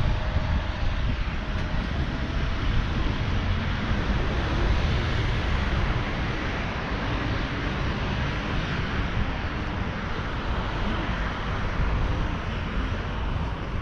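Open-air city street noise: a steady hiss of passing traffic, with wind rumbling on the microphone.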